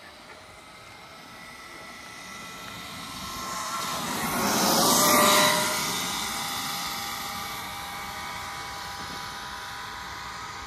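Brushless-motor Kyosho Mad Force RC car driving up and past: its high motor whine and tyre noise swell to a loud peak about five seconds in, then drop back to a steadier, quieter whine as it moves away.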